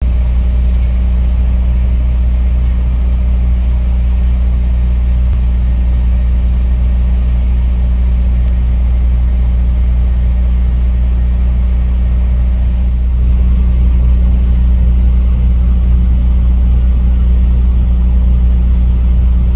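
Vehicle engine running at a steady idle, heard from inside the cab: a deep, even hum over a low rumble. It grows slightly louder about two-thirds of the way through.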